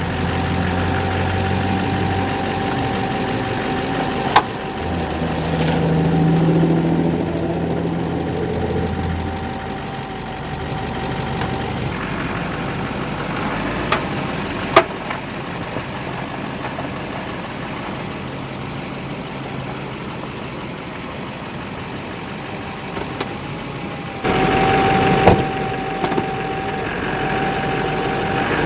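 2008 Chevrolet Silverado 2500's Duramax diesel running slowly with a steady whine, and three sharp pops from the front end, about ten seconds apart, as the truck turns. The popping was later traced to loose engine crossmember bolts.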